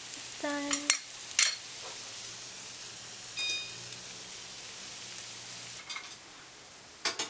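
Egg mixture sizzling steadily in a hot frying pan while a utensil stirs it, with a few sharp clicks of the utensil against the pan and a brief high ring about three and a half seconds in. The sizzle dies away about six seconds in.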